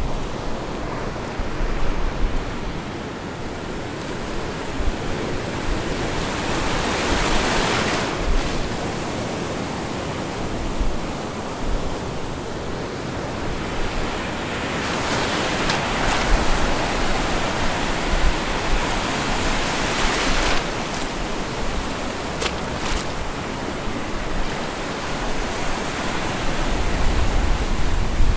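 Ocean surf: waves breaking and washing in as a steady rush that swells louder every several seconds. Wind rumbles on the microphone near the end.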